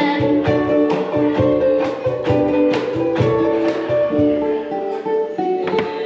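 Ukuleles strumming chords in a steady rhythm, about two strokes a second, playing an instrumental passage of a song with no singing.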